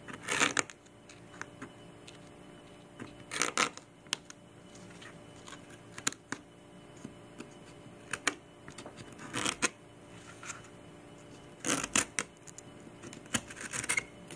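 X-Acto knife blade slicing through stretched canvas in short scratchy strokes that come at irregular intervals, with a faint steady hum beneath.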